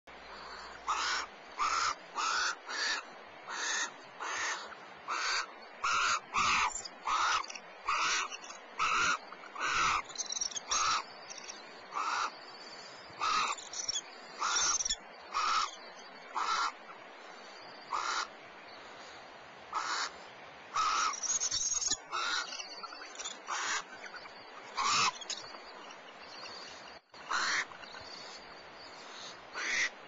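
Barn owls in a nest box giving a long series of short, raspy hissing calls, one or two a second at first and sparser later: the snoring food-begging calls barn owls make when the male brings food.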